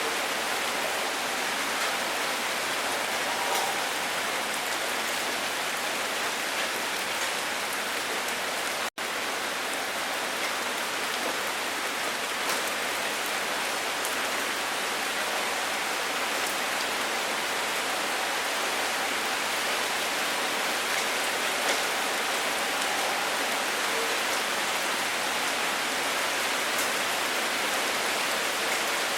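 Steady rain falling, an even hiss with scattered sharp drop ticks; the sound cuts out for an instant about nine seconds in.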